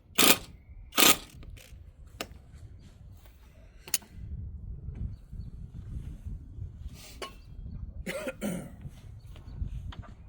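Chicken run door latch hardware being worked by hand: two loud sharp clacks in the first second, then scattered lighter knocks and clicks, with another cluster of knocks near the end, as the latch is adjusted and tried.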